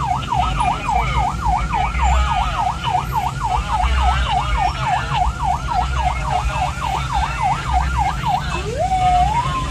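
Ambulance electronic siren in fast yelp, its pitch sweeping rapidly up and down about three to four times a second, heard from inside the ambulance cab over engine rumble. Near the end it switches, winding up and starting a slow falling wail.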